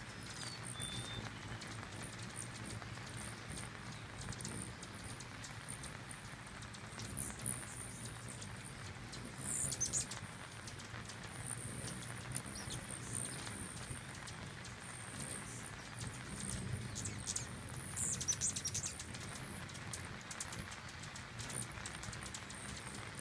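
A crowd of hummingbirds at a nectar feeder, giving a constant stream of very high, rapid chip notes and squeaky twitters, with the buzz of their wings low underneath. Louder chattering squeals break out about ten seconds in and again near eighteen seconds, as birds chase each other at the feeder.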